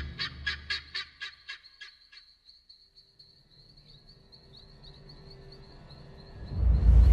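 Guineafowl alarm calls: a rapid run of harsh cackles, about four a second, fading out about two seconds in. A loud, low rumble of music swells in near the end.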